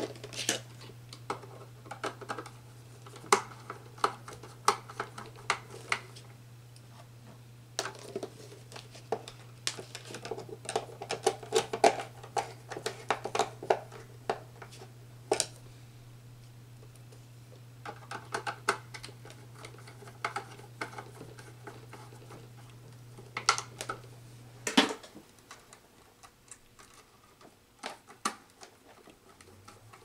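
Hands working control wiring on a panel: irregular light clicks, taps and rustles of wires, wire strippers and a screwdriver at the terminals, over a steady low hum that cuts off suddenly about 25 seconds in.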